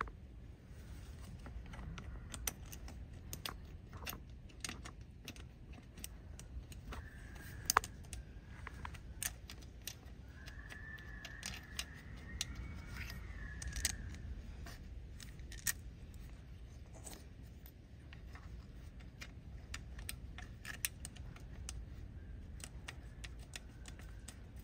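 Scattered light clicks and metallic taps of hand work as a new wheel speed sensor is worked into its bore and started by hand. A faint high tone comes in briefly twice around the middle.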